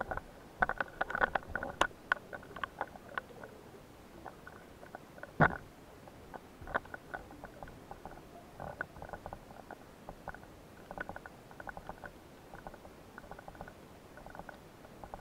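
Underwater clicking and crackling picked up by a submerged camera: scattered short clicks, busiest in the first few seconds, with one sharper knock about five and a half seconds in.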